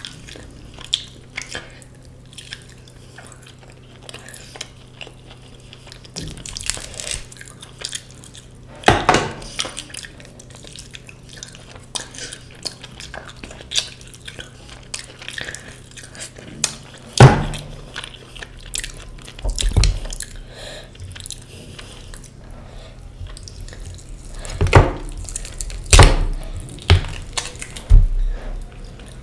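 Close-miked eating: chewing and mouth sounds with scattered clicks of dishes and cutlery, and a few louder knocks, over a faint steady low hum.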